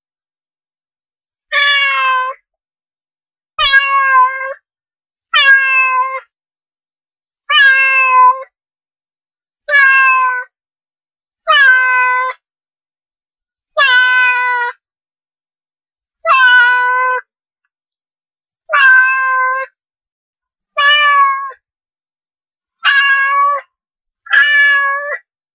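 A domestic cat meowing over and over: about a dozen short meows, one roughly every two seconds, with silence between them.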